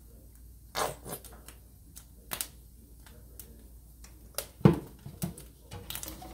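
Kitchen handling sounds: a plastic squeeze bottle squirting mustard onto toast, then a spatula against a nonstick frying pan near the end. Scattered light clicks and knocks, with one louder knock about four and a half seconds in.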